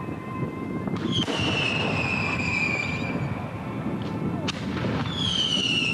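Fireworks going off: a sharp bang about a second in, followed by a long whistle falling slowly in pitch, another bang past four seconds, and a second falling whistle starting near the end, all over a constant low rumble.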